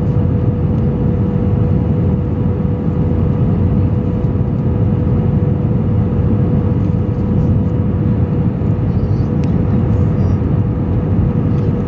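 Steady airliner cabin noise on approach to landing: a rumble of engines and airflow heard from a window seat, with a steady hum running through it.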